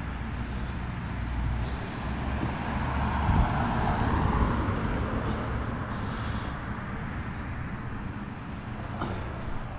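A car passing close by on the road, its noise swelling to a peak about three to four seconds in and then fading away.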